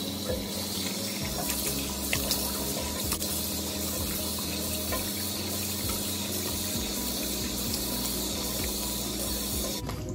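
Tap water running steadily into a sink, with small splashes as hands rinse foaming face scrub off a face. The water cuts off abruptly near the end.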